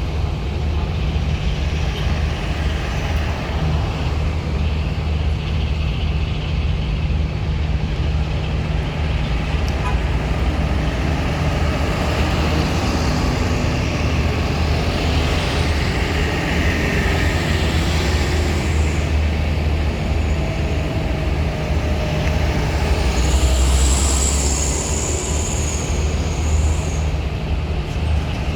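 Heavy truck and bus engines running with a steady low drone, as vehicles move on and off a roll-on/roll-off ferry; a high hiss joins near the end.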